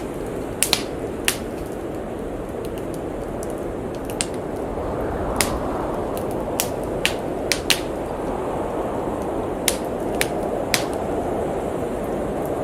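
Fireplace crackling, with sharp pops at irregular intervals, over the steady rush of howling blizzard wind. The wind swells in a gust about five seconds in.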